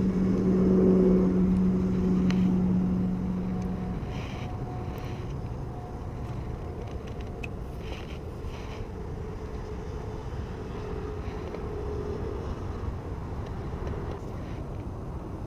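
A steady low motor hum that stops about four seconds in, followed by a quieter low rumble.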